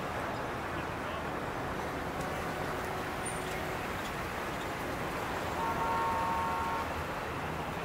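Steady city-street traffic noise, with a car horn sounding for about a second a little past the middle.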